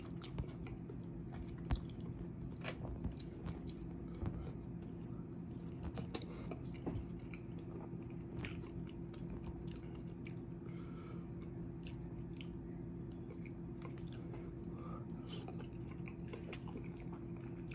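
A person chewing and eating close to the microphone, with scattered wet mouth clicks and smacks, over a steady low hum.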